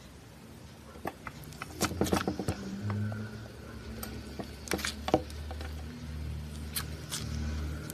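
Slime being squeezed and poked, giving sharp sticky clicks and pops, a quick cluster about two seconds in and single ones later; low steady tones run underneath.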